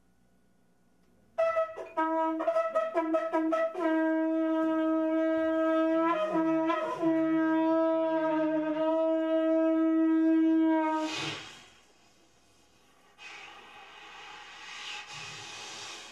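A hand-held wind instrument is blown in a run of short, tongued notes that settle into one long held note, which dips briefly in pitch partway through. The note ends in a breathy rush, and a few seconds later a softer breathy hiss follows.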